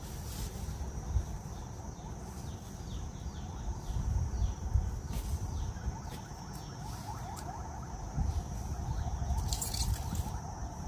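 Hands picking and pulling pepper elder plants from wet soil: rustling leaves and snapping stems, with a cluster of crackles near the end, over a steady low rumble and a faint steady high tone.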